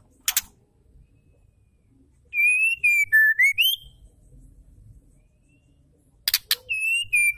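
Female white-rumped shama singing: a sharp clicking note, then a clear whistled phrase that wavers around one pitch and rises at its end. Near the end, a quick run of clicks leads into a second, similar whistled phrase.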